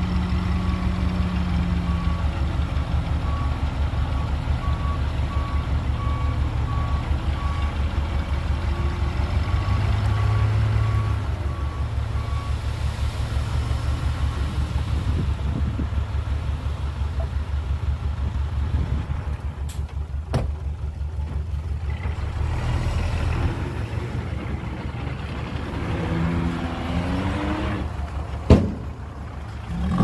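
Heavy diesel machinery running with a steady, pulsing low rumble, its reversing alarm beeping for the first dozen seconds. A single sharp knock near the end.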